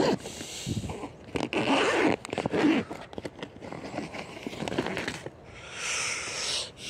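Zipper of a two-person Decathlon tent being worked, with the tent's fabric and plastic rustling and scraping as hands rummage inside; a series of short rustles, then a longer zip near the end.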